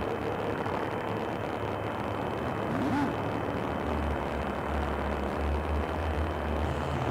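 Dense, noisy sound texture from a live electronic sound installation, with a brief rising-and-falling pitch glide near the middle and a deep rumble that comes in about four seconds in.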